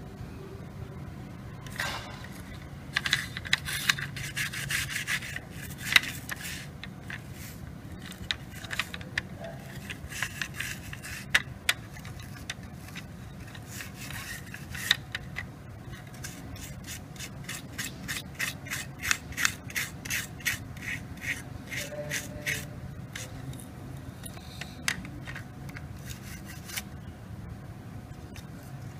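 Plastic router case being handled and prised apart: irregular runs of scraping and rubbing with many sharp plastic clicks.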